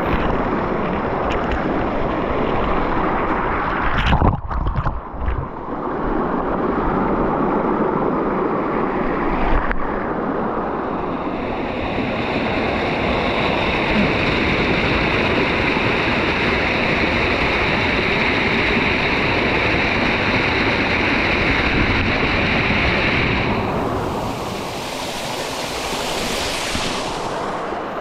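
Mountain stream water rushing over rocks in a steady loud hiss, with a few knocks and a brief dip about four to six seconds in. A steadier, higher hiss joins from about eleven seconds in and changes near the end.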